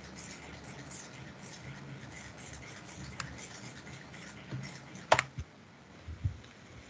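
Faint room noise with two clicks from working a computer, a light one about three seconds in and a louder, sharper one about five seconds in, as a drawing on screen is selected and deleted.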